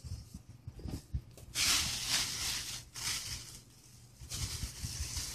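Rustling and handling of packaged craft items, in two stretches of about a second each: one a second and a half in, one near the end.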